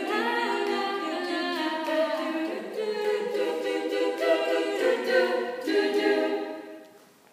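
A small group of young female voices singing a cappella in close harmony, holding the song's last chords, which fade out near the end.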